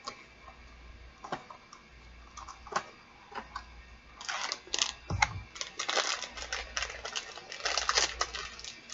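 Small cardboard blind box being opened by hand: scattered clicks and taps of the cardboard, then bursts of crackly rustling of the packaging from about four seconds in.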